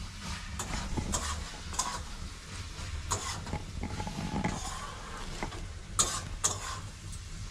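Wooden rolling pin rolling dough out on a round wooden board, with irregular light knocks and clicks of the pin against the board.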